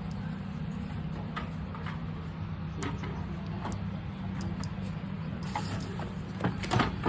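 Scattered light clicks and a few sharper knocks as a pet door frame and long mounting screw are handled and worked, over a steady low hum.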